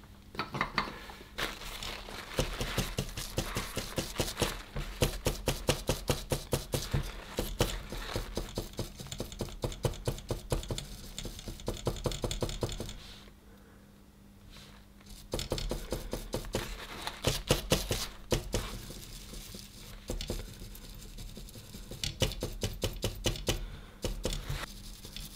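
Rapid rubbing and scrubbing strokes cleaning flux residue off a laptop circuit board, in two spells with a pause of about two seconds in the middle.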